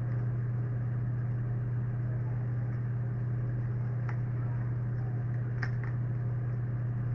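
A steady low hum with no words over it, and a few faint clicks about four seconds in and again a little after five and a half seconds.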